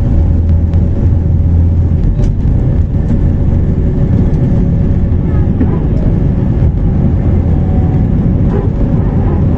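Cabin noise of an Airbus A321 on its takeoff roll and liftoff: the jet engines at takeoff thrust make a loud, steady rush with a deep rumble beneath and a steady tone on top.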